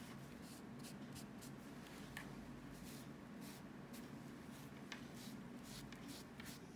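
Faint rubbing of a round dauber worked back and forth over a tooled leather knife sheath in short, irregular strokes, over a steady low hum.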